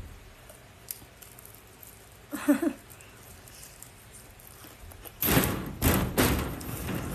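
A brief hummed vocal sound about two and a half seconds in, then, from about five seconds in, a quick run of loud, sharp crunches and knocks close to the microphone, typical of close-miked mukbang eating.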